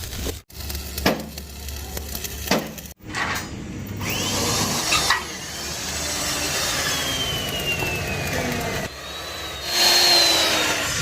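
Workshop tool noise, sawing or rubbing at metalwork, in several short clips that cut abruptly from one to the next, with a louder stretch near the end.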